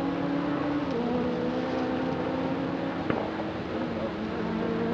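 Distant rally car engine running at high revs with a steady note that steps down in pitch about a second in and climbs again near the end. A single sharp click about three seconds in.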